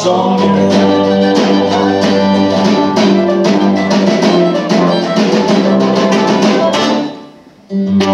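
Live string band playing with fiddle, acoustic guitar, drum kit and tuba holding low bass notes. The band stops for a brief break of under a second near the end, then comes back in together.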